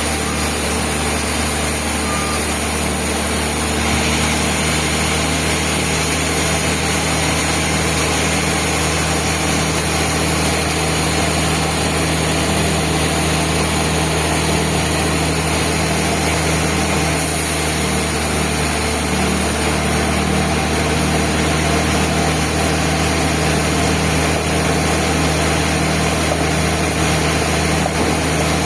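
Band sawmill running with a steady, even mechanical drone that holds constant throughout.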